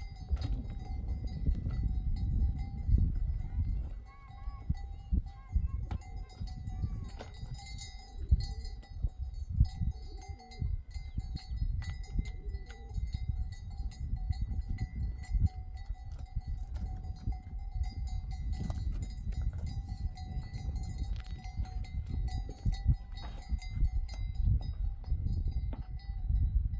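A flock of sheep and goats with bells ringing, the animals bleating now and then, over rumble and scattered clicks.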